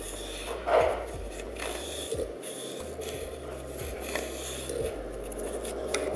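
Yarn and fingers rubbing and scraping against the wooden board of a homemade fringe loom as threads are worked by hand, with small handling clicks and one brief louder sound about a second in.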